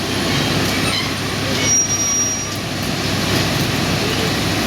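Meter-gauge intercity passenger train running on the rails: a steady rumble of coaches and wheels, with a brief thin high tone a little under two seconds in.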